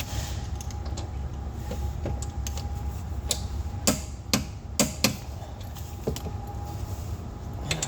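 Hand tools being handled under the car: about half a dozen sharp clicks and knocks, mostly in the middle, over a steady low hum.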